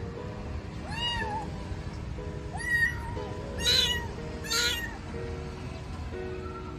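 Young tortoiseshell kitten meowing loudly, about four high meows, the two loudest near the middle, which its carer takes for calling after its mother. Soft background music underneath.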